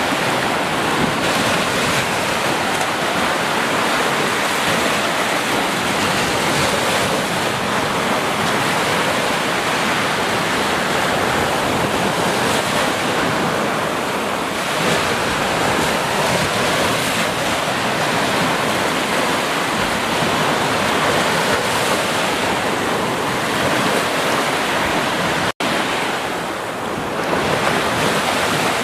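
Small ocean waves breaking and washing up a sandy beach, foam spreading and hissing in a steady rush of surf, with a momentary cut-out near the end.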